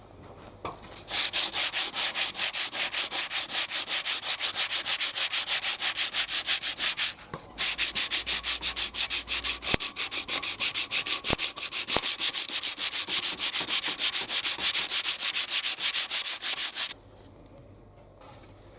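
Sandpaper being rubbed by hand over a wooden canoe paddle in rapid, even back-and-forth strokes, several strokes a second. It runs in two long bouts with a short pause about seven seconds in, then stops about a second and a half before the end.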